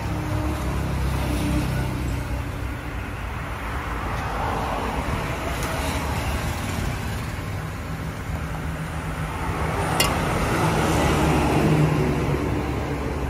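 Road traffic passing close by: car and motorbike engines and tyre noise, a steady low din that swells a little near the end, with one sharp click about ten seconds in.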